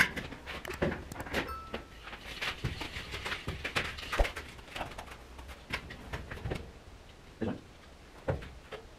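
Scattered footsteps, knocks and clatter of a person moving about and climbing a metal scaffold tower inside an empty steel shipping container, irregular and echoing.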